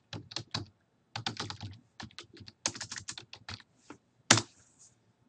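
Typing on a computer keyboard: a run of quick, irregular keystrokes, then one louder keystroke a little after four seconds in.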